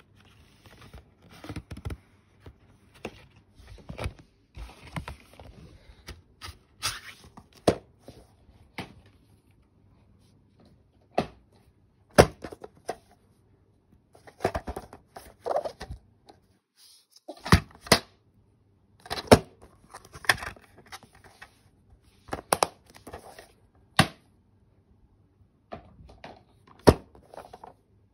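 Plastic DVD cases being handled, shuffled and set down: irregular sharp clicks and knocks with scraping and rubbing in between.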